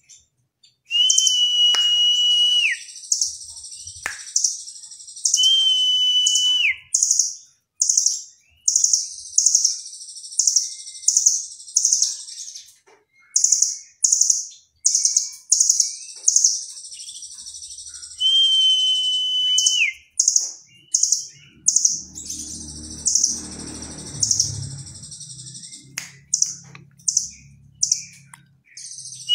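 Caged rambatan doraemon nuthatch singing: a fast string of sharp, high chips, about two to three a second. Three times it breaks into a long, level whistle that drops away at the end.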